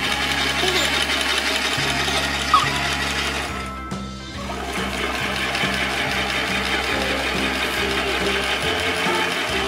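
Toy washing machine running, its small motor whirring steadily as the drum spins, cutting out briefly about four seconds in before carrying on.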